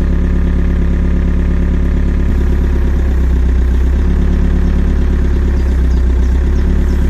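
Takeuchi excavator's diesel engine running steadily. From about two seconds in it pulls harder for a few seconds, as it would while its hydraulics force a steel track pin home.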